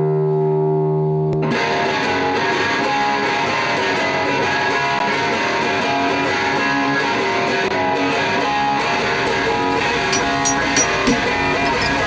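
Background rock music with guitar: a held chord, then about a second and a half in the full band comes in with a steady beat.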